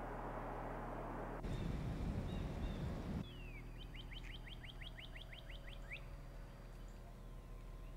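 A small bird singing a fast trill of about a dozen chirped notes lasting about two seconds, over a steady low hum. It is preceded by a low rumble that starts about a second and a half in and stops suddenly about three seconds in.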